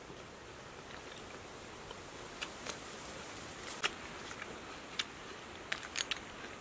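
Roasted oyster shells clicking against each other as they are handled and picked open over a basket: a handful of sharp, separate clicks, more of them in the second half, over a steady hiss.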